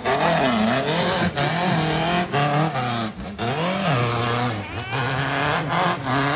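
Two-wheel-drive off-road buggy's engine revving hard, its pitch rising and falling several times as it claws up a steep dirt hill, with the tyres spinning and throwing dirt.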